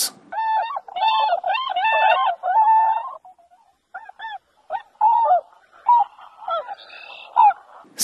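Swans calling: a quick series of short, repeated calls for about three seconds, then after a brief pause a scattering of single calls.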